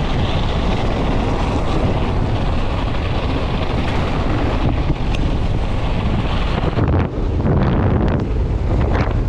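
Wind noise on the microphone of a mountain bike descending fast, over the steady rumble of tyres on loose volcanic dirt.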